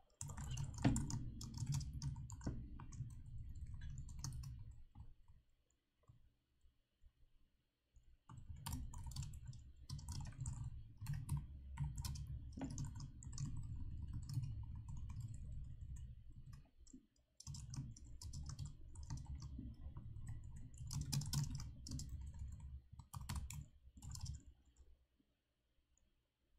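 Typing on a computer keyboard: runs of rapid key clicks with a low knock under them. The typing pauses for about three seconds some five seconds in, breaks briefly around seventeen seconds, and stops about two seconds before the end.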